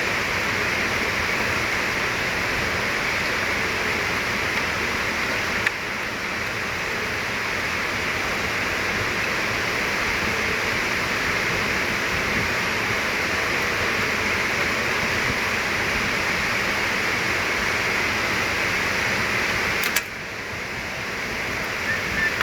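Steady hissing background noise, with a sharp click about six seconds in and another near the end.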